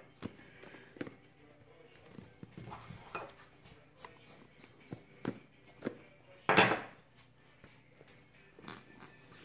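Scattered light taps, clicks and scrapes of hands working at a cardboard phone box to get it open, with one loud knock about six and a half seconds in.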